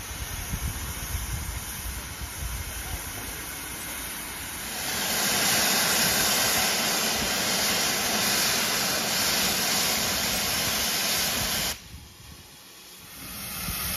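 GWR Manor Class steam locomotive 7828 blowing off steam: after a low rumble, a loud steady hiss of escaping steam starts about five seconds in, cuts off suddenly about twelve seconds in, and builds back up near the end.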